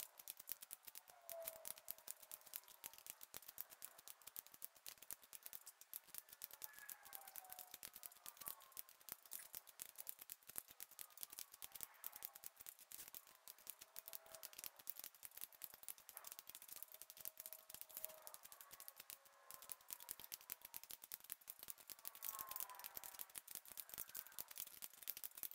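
Faint, rapid clicking of a torque wrench's ratchet as the intake manifold bolts are run down in a torque pattern, pass after pass, to seat the intake.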